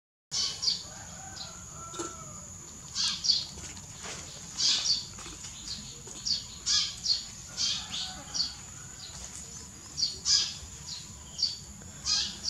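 Birds chirping: repeated short, high-pitched chirps, often in quick pairs, about one to two a second, over a steady high hiss.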